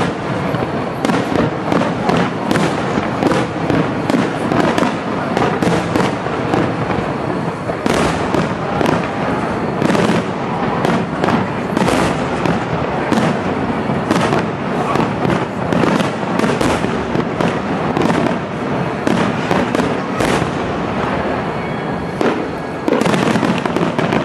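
Aerial firework shells bursting in a continuous barrage: many sharp bangs one after another over a dense rumbling din, louder near the end.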